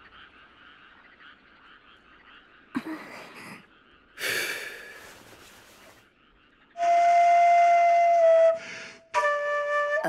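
A transverse flute played: a long held note begins about seven seconds in and dips in pitch at its end, then a second note comes just before the end. Before the flute there is only faint ambience, broken by two short noisy sounds around three and four seconds in.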